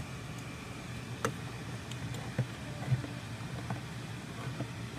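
Hand-held manual can opener cutting around the lid of a steel food can: a handful of irregular clicks as the key is turned and the gear bites the rim, over a steady low hum.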